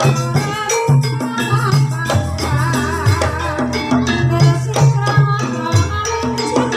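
Javanese gamelan music accompanying an ebeg hobby-horse dance: steady, repeated low drum strokes under melodic pitched notes.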